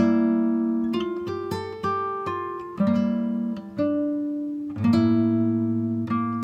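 Background music: an acoustic guitar plucking chords, a new chord struck about every second and left to ring.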